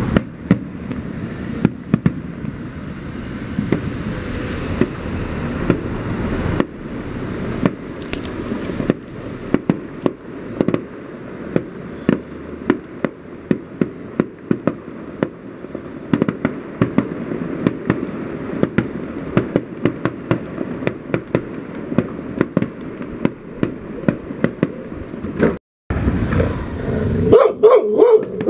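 Fireworks display: a dense, continuous run of sharp bangs and crackles, several reports a second, over a rumbling background of bursts. Near the end a dog barks.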